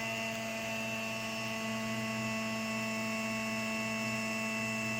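ISEL GFM 4433 CNC router running a drilling job: a steady hum made of many fixed tones, unchanging while the Z axis feeds slowly down at a slow drilling rate.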